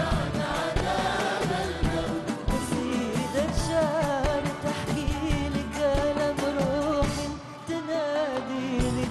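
A woman singing an ornamented Arabic melody live, with a large orchestra of strings and hand percussion playing under her. Her voice comes in strongly about three and a half seconds in.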